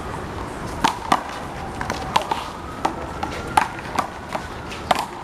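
Handball rally: a small rubber handball is smacked by open hands and bounces off the wall and the concrete court, about seven sharp smacks at uneven intervals.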